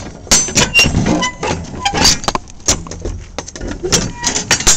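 Metal clanking and rattling from a semi-trailer's rear swing-door lock rods and cam latches being handled, a quick irregular run of sharp knocks.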